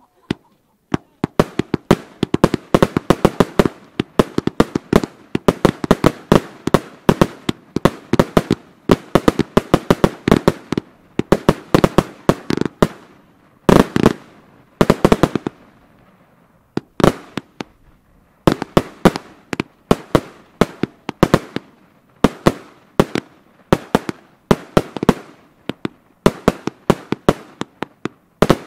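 Firework battery cakes firing: rapid volleys of shots, several a second, with the bangs of their bursts overhead. There is one heavier bang about fourteen seconds in and a short lull a couple of seconds later before the volleys resume.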